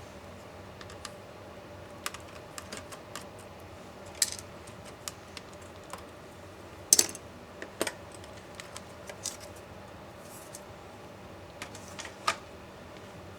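Irregular clicks and taps of small plastic and metal parts and tools being handled while an MSI GT72VR laptop is taken apart. The loudest are a couple of sharp knocks about seven seconds in and one near the end.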